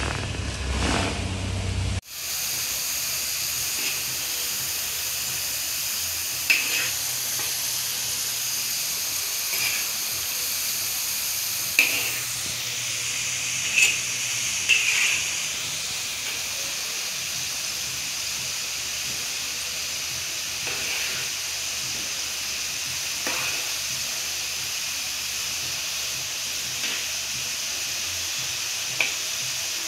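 Potato fries and slices deep-frying in hot oil in a wide steel wok-style pan: a steady, high bubbling sizzle. A few sharp clinks come from a slotted metal spoon stirring them. The sizzle begins abruptly about two seconds in, after a low rumble.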